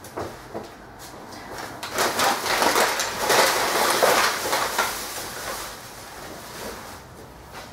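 Black plastic bin bag rustling and crinkling as it is handled, loudest for about three seconds in the middle. A few small knocks come just before.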